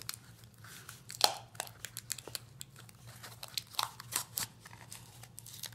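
Packing tape being pressed and smoothed by hand onto a folded cardboard toilet-paper roll: scattered crinkles, rustles and small taps of tape and cardboard, the sharpest about a second in, over a faint steady low hum.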